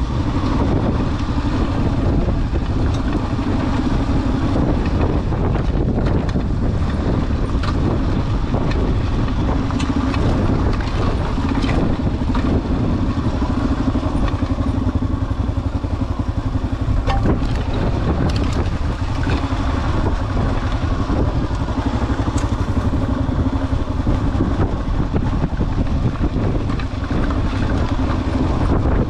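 Kawasaki KLR 650's single-cylinder engine running steadily on the trail, heard with heavy wind rumble on the microphone and a few scattered knocks.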